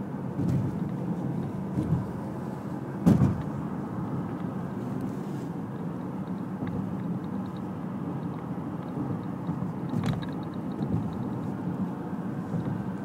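Steady road and engine noise of a car driving on a highway, heard from inside the cabin, with a short thump about three seconds in and a lighter one about ten seconds in.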